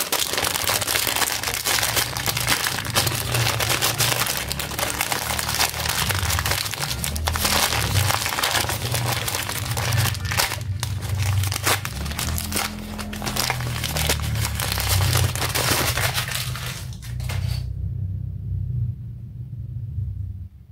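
Plastic packaging crinkling and crumpling as it is handled, over background music; the crinkling stops about three seconds before the end, leaving the music.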